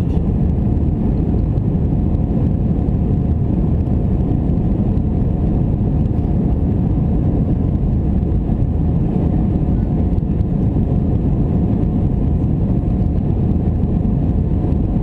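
Airbus A319 cabin noise: a loud, steady drone of the jet engines and airflow heard from inside the cabin, with a faint steady whine above it.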